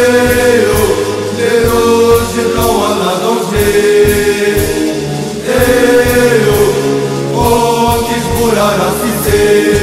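Music: a group of voices singing a chant-style song in Arabic over a steady drumbeat, in the style of a football supporters' song.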